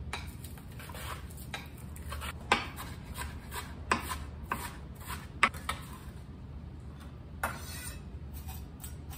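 Onion being rubbed across a mandoline slicer, then a kitchen knife chopping onion slices on a cutting board, with a few sharp knocks of the blade on the board a second or more apart.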